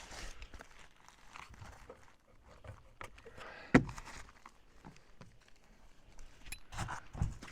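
Roofing paper being pulled and unrolled by hand over a roof, with scattered rustling and small knocks, the loudest a single sharp knock a little before halfway.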